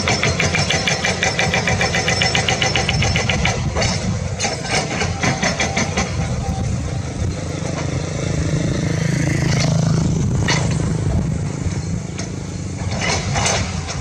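Hydraulic excavator's diesel engine running under working load, with rapid, regular metallic clattering for the first few seconds. Later the engine note swells, and a few sharp clanks follow near the end.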